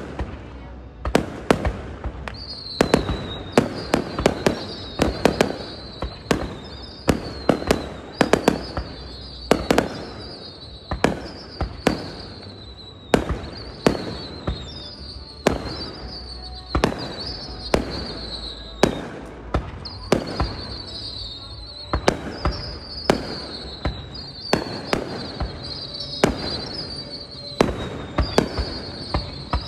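Aerial fireworks display: a rapid, continuous series of shell bursts, sharp bangs coming about one or two a second over a low rumble, with a high whistle recurring between them.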